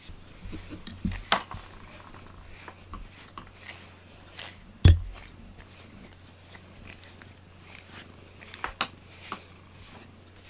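Close-up rubbing and handling noise from a cat rubbing against the camera, with scattered clicks and knocks and one loud thump about five seconds in.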